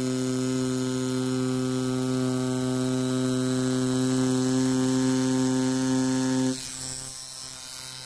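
Rotary tattoo machine running at a steady speed with an even hum, then stopping about six and a half seconds in. It runs smoothly, without catching or stalling.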